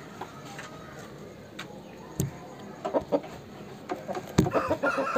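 Aseel chickens clucking in short bursts, a few about three seconds in and a run near the end, with a few sharp clicks between them.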